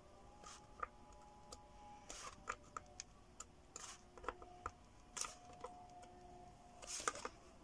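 Faint, irregular clicks and taps of multimeter probe tips being set down on the LEDs of an LED floodlight's chip board, testing the LEDs one at a time for failed ones.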